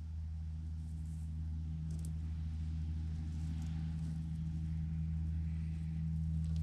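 A steady low machine hum, with faint rustling and a few light clicks of plastic mesh scale netting being wrapped around a lure blank by hand; a small cluster of clicks comes about two seconds in.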